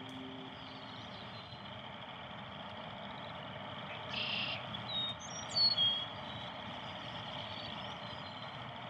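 Outdoor field ambience: a steady hiss of background noise, with small birds chirping several times, the loudest about six seconds in.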